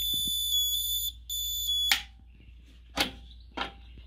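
Plug-in socket tester's buzzer sounding a steady high-pitched tone, with a short break about a second in, then cutting off about two seconds in: with its green lights lit, it signals that the socket is wired correctly. Two sharp clicks follow as the socket's rocker switch is pressed.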